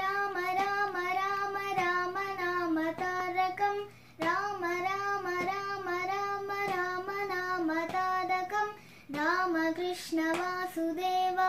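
Young girl singing a Hindu devotional bhajan in a steady, chant-like melody, with two short breaks for breath about four and nine seconds in.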